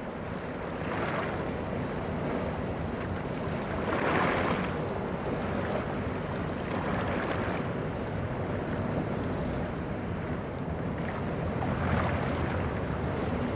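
Waterside ambience of a passing container ship: a low steady drone of the ship under water washing against the shore, swelling every few seconds.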